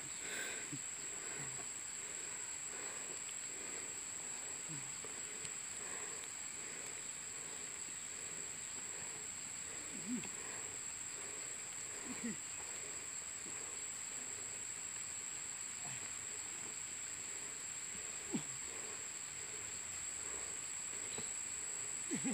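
A young calf giving short, low calls every few seconds, the loudest about ten, twelve and eighteen seconds in, over a steady high-pitched insect drone.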